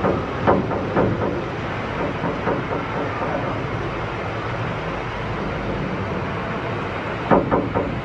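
Steady hum of a busy indoor shopping mall with distant voices, with a few brief louder voice sounds about half a second in and again near the end.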